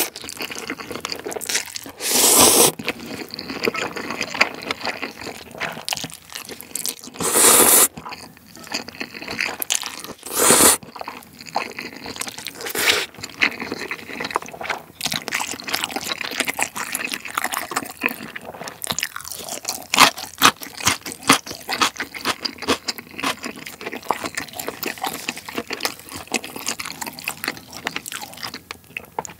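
Close-miked slurping of chewy, spicy jjolmyeon noodles, with about three long slurps in the first half and a shorter one after them, then steady wet chewing.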